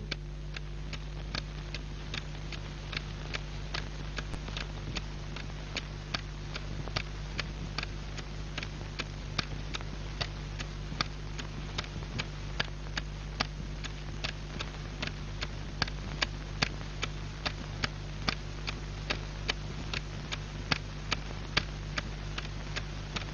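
Pendulum wall clock ticking steadily, about two ticks a second, over a faint steady low hum.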